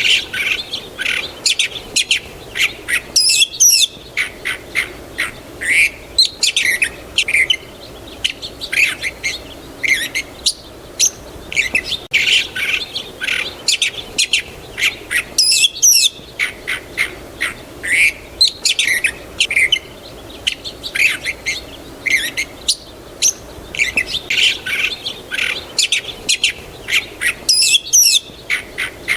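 A chorus of small songbirds chirping and singing, many short high calls overlapping with hardly a pause. The pattern, with its brief lulls, repeats about every twelve seconds, like a looped recording.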